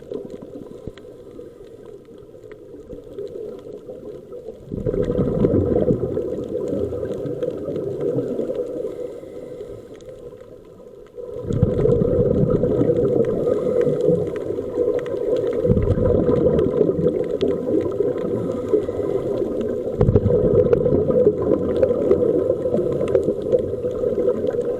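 Muffled underwater sound while scuba diving: a bubbling, rushing water rumble with faint steady tones above it. It jumps louder about five seconds in and again near the middle.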